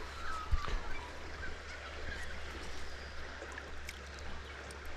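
Steady flowing river water, with a few faint bird chirps about half a second in and a few light ticks.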